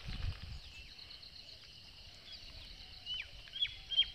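Birds chirping in short, quick downward-sliding notes that come faster and louder near the end, over a steady high-pitched insect drone. A brief low rumble at the very start.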